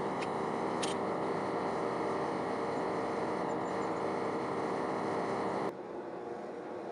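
Propane forge burner running with a steady rushing noise, with a couple of light clicks about a second in. The sound stops abruptly near the end.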